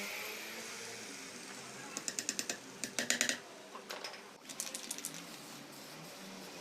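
Hand ratchet wrench clicking in three short runs of rapid metallic ticks, about ten a second, while the fasteners on a SEW-Eurodrive reduction gearbox are run in. A fading hiss from the power tool running down is heard in the first second.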